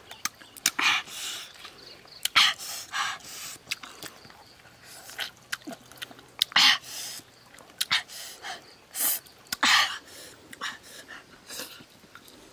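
Close mouth sounds of someone eating with his fingers: irregular smacks, sucks and short breathy puffs.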